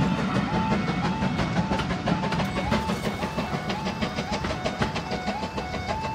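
Level crossing audible warning alarm sounding a steady repeating two-tone yelp. Under it, the last coaches of a passing train rumble and clack over the rails, the rumble fading within the first second.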